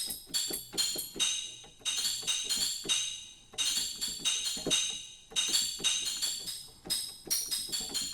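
Sleigh tambourine sample played as a rhythmic pattern of quick, bright jingle hits in short runs with brief gaps between them.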